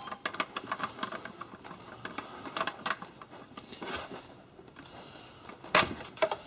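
Allen key turning a screw through the back of the trigger into the plastic stock of a Double Eagle M57 spring rifle, with many small clicks and scrapes. A louder cluster of clicks near the end as the key comes out and the stock is handled.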